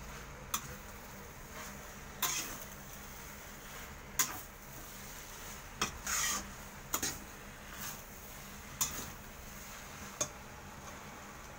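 A metal spatula scrapes and clinks against a metal wok as rice noodles are stir-fried. It makes about eight sharp, irregularly spaced strokes, one a longer scrape about six seconds in.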